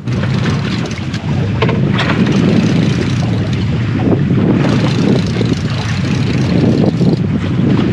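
Steady wind noise buffeting the microphone on a small boat at sea.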